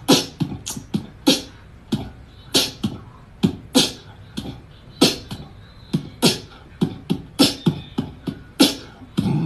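A percussive beat in the style of beatboxing: a steady rhythm of sharp hits and short low thumps, about three a second.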